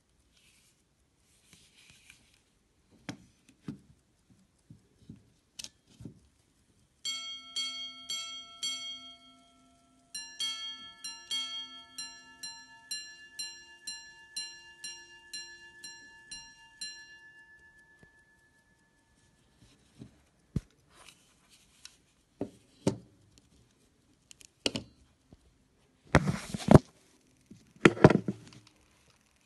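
Minute repeater pocket watch striking the time on its gongs: a slower series of low strikes, then after a short pause a longer, faster run of strikes on two gongs that fades away. Small clicks come before the chiming, and loud knocks and rubbing from handling near the end.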